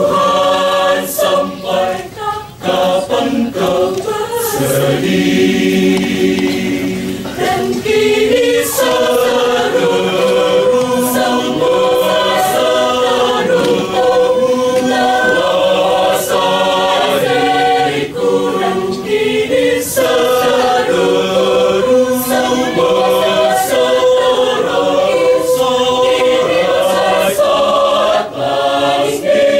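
Church choir singing a hymn in several-part harmony, with long held notes.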